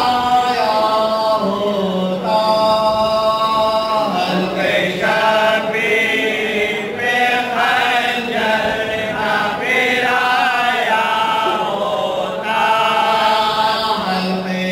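Noha, a Shia mourning lament, sung unaccompanied by a male reciter with other men's voices joining in, in long held, wavering notes.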